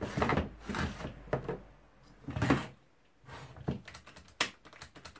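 Handling noises on a workbench: a few rustling scrapes and clunks, a quiet moment past halfway, then several sharp clicks and knocks near the end.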